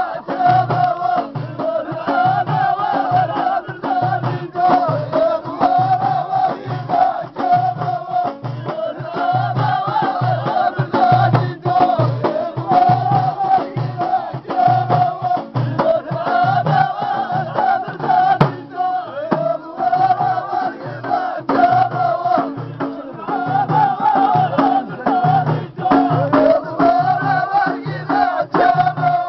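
A group of men singing an Amazigh folk chant together in repeated short phrases, to a hand-beaten frame drum keeping a steady beat.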